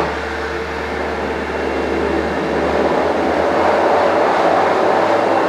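Pet blow dryer forcing air through its hose nozzle onto a wet dog's coat: a steady rushing blast of air that slowly grows louder.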